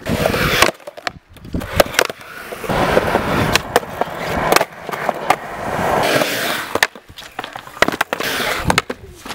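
Skateboard on a concrete skatepark: polyurethane wheels rolling with a steady rumble, broken by several sharp clacks of the deck popping and landing. Partway through, the trucks scrape along a concrete ledge in a grind.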